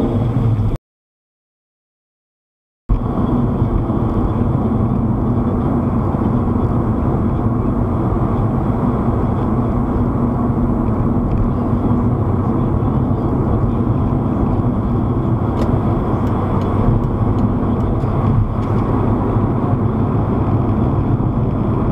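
Steady road and engine rumble inside a moving car, picked up by a dashcam's microphone. The sound cuts out completely for about two seconds near the start, then carries on unchanged.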